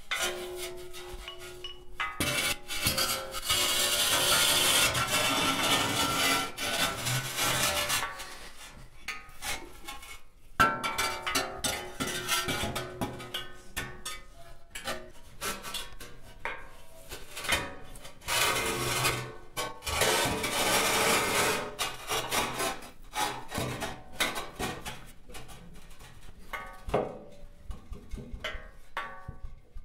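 Irregular scraping and rasping sounds with scattered clicks and faint tones mixed in, swelling into louder stretches twice.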